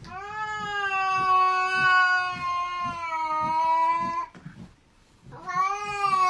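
Cat yowling: one steady cry of about four seconds, falling slightly in pitch. After a short break, a second yowl starts near the end.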